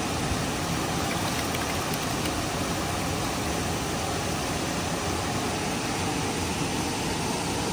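Steady, even rush of water pouring through a dam's outflow.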